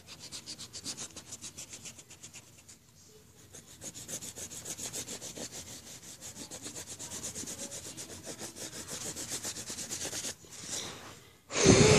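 Quick back-and-forth rubbing on drawing paper, about five strokes a second, that stops about ten seconds in; a short, louder noise follows near the end.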